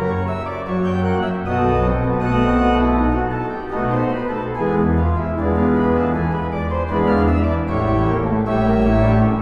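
Church pipe organ playing slow, sustained full chords with deep bass notes underneath, the chords changing every second or so.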